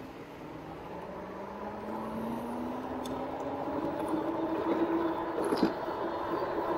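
Rad Power Bikes RadRover electric bike's rear hub motor whining under power as the bike pulls away from a stop. The whine rises in pitch for the first few seconds as the bike speeds up, then holds steady over wind and tyre noise, with a couple of light clicks partway through.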